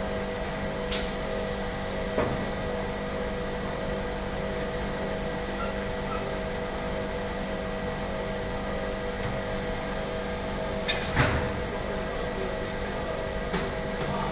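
Steady electrical hum of a high-frequency PVC welding machine with several fixed tones, broken by a few sharp clacks of parts being handled at the press, the loudest a close pair about three-quarters of the way through.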